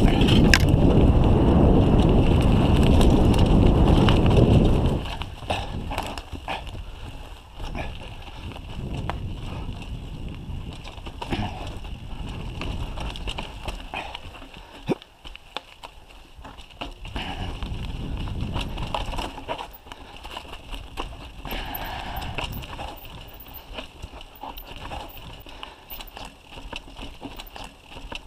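Mountain bike riding down a rough dirt and stone trail. Wind buffets the microphone loudly for about the first five seconds. After that come tyres rolling over dirt and stones, the bike rattling, and scattered sharp knocks.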